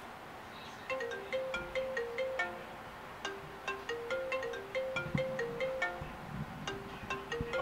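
Marimba-style phone alarm tone playing a short melody of quick notes over and over, starting about a second in: an alarm going off to wake a sleeper.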